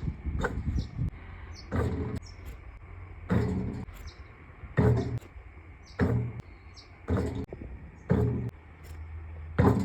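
A basketball swishing through the net over and over: seven short rushing bursts, roughly one every one to one and a half seconds. Short high chirps sound between them.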